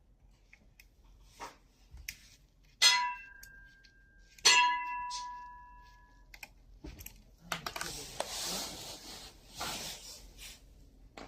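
Small metal parts or tools handled on a work surface: two sharp metallic clinks about a second and a half apart, each ringing on briefly, then a few seconds of scraping and rustling.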